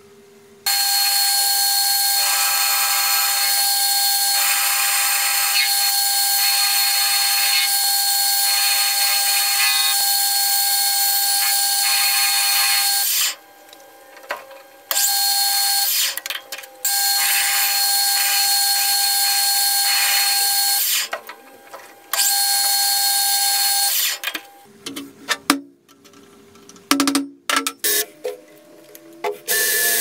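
Metal lathe running with a steady whine while its tool cuts a steel shaft, stopping and starting again several times. Near the end, a run of sharp metal clanks and knocks.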